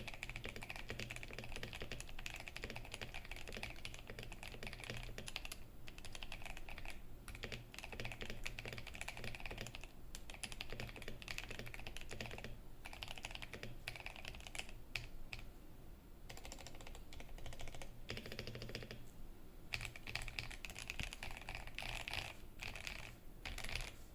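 Steady typing on a KBD67 Lite R3 ISO mechanical keyboard with lubed Boba U4T tactile switches and NovelKeys Cherry Stone keycaps, its case dampened with silicone and tempest tape: a fast run of key clacks with brief pauses now and then.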